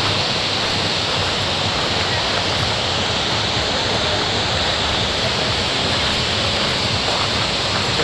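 Steady, even rush of many waterfalls pouring into a pool.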